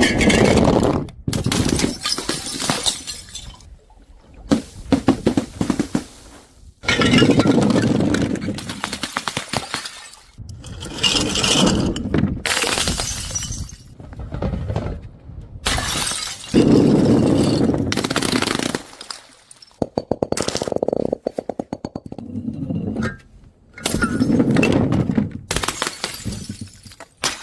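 Glass bottles thrown onto stairs, shattering one after another, each crash followed by glass shards clinking and skittering. A little past the middle comes a quick run of evenly spaced clicks.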